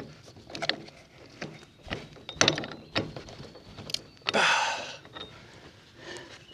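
Metal knocks and clunks from a PTO Link quick coupler being pushed and worked against a PTO shaft that won't slide in, about half a dozen sharp knocks, then a short scraping rush about four seconds in.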